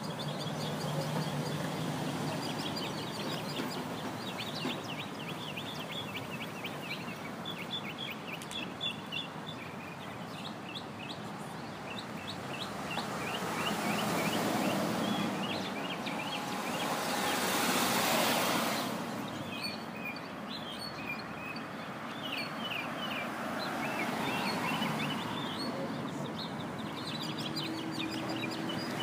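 A mockingbird singing, running through series of short chirped phrases, each repeated several times in a row. A broad rushing noise swells and fades about halfway through.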